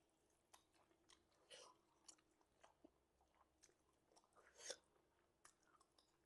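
Faint chewing and mouth smacking, heard as soft, scattered clicks, with a louder smack about four and a half seconds in.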